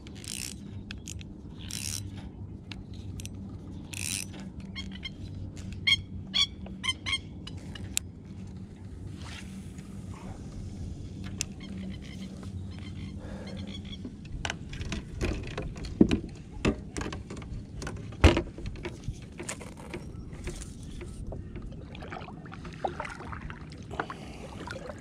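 Scattered clicks, taps and scrapes of fishing tackle being handled in a kayak, over a steady low hum, with two sharp knocks about two thirds of the way through.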